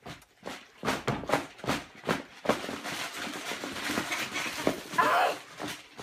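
Blind-bag toy packets shaken inside a fabric storage box: a run of knocks and thuds as the packets tumble, then steady crinkly rustling.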